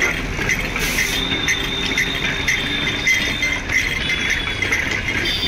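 Sugarcane juice press running, its steel rollers and gears clattering in a steady, rapid rhythm as a cane stalk is fed through and crushed.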